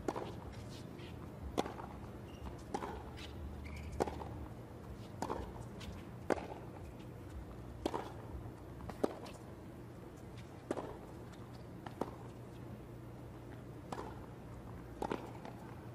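Tennis racquets striking the ball back and forth in a long baseline rally, a sharp pop roughly every second and a quarter.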